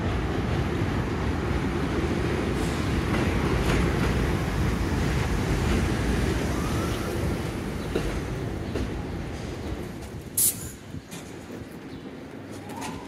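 R62A subway train pulling into an elevated station and braking to a stop: a loud, steady rumble of wheels on the rails that fades over the last few seconds as the train slows. A short, sharp hiss comes about ten seconds in.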